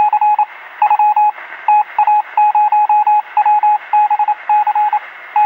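Electronic beeping: a single steady tone keyed on and off in quick groups of short beeps, like Morse code, over a constant hiss of radio-like static. It is a sound effect that goes with text typing out on screen.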